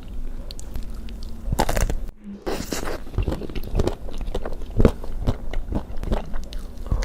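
Close-miked eating of chocolate desserts: a string of bites and chewing with short crisp crackles, starting about one and a half seconds in.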